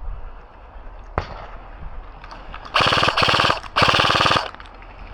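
Airsoft gun firing two short full-auto bursts close to the microphone, a rapid rattle of shots with a brief gap between them. A single sharp click comes before them.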